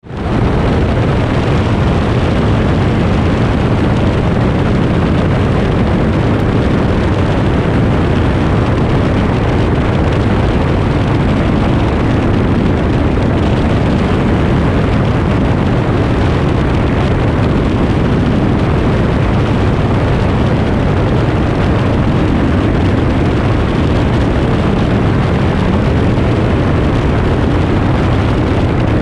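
Aeroprakt A22 LS light sport aircraft's engine and propeller running at takeoff power, mixed with wind rush over the camera, as the plane rolls down the runway and climbs out. A loud, steady, low noise that fades in at the start and then holds even.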